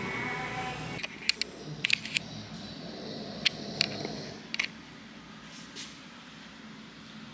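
Background voice or music cuts off about a second in, followed by a handful of sharp, brief clicks at irregular intervals over quiet background noise.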